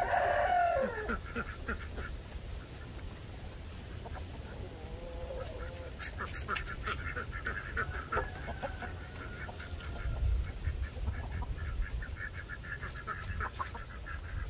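Ducks quacking: a run of short, rapidly repeated calls, with a longer drawn-out call about five seconds in.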